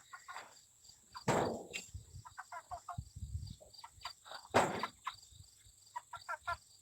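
Young meat chickens making short peeping calls over and over, with insects chirping steadily behind them. Two brief loud rustling noises break in, about a second in and again past the middle.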